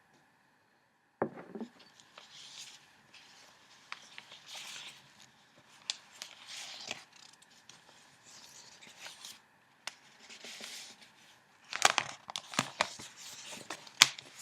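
Newspaper flier paper being handled and flipped: soft rustling swishes about once a second, with sharp taps and crinkles. A low thump comes about a second in, and a burst of louder, crisp crackling and tapping comes near the end.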